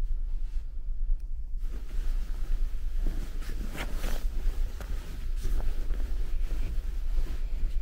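Low, steady rumble of the Sunflower car ferry under way. From about one and a half seconds in, wind buffets the microphone in irregular gusts.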